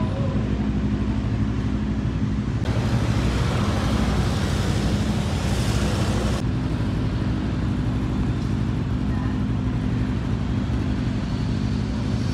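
A motor vehicle engine running steadily nearby, a continuous low hum, with a rushing hiss over it from about three to six seconds in.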